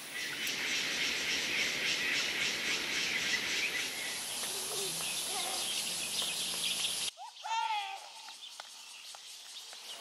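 Outdoor forest ambience. Insects chirr in a dense, fast pulsing chorus over a thin, high, steady tone. About seven seconds in this cuts off abruptly, and a bird gives a few falling whistled calls over quieter background.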